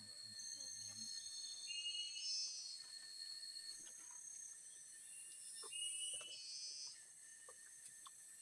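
Forest insects chirping and buzzing in a steady high-pitched chorus, with short chirping calls that come and go and a few faint clicks.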